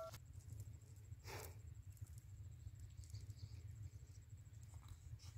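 Near silence: a faint low outdoor rumble, with one soft rustle about a second in and a few faint ticks.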